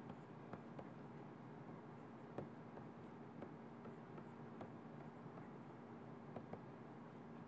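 Faint, scattered taps and scratches of a stylus writing on a pen tablet, over a steady low hum of room tone.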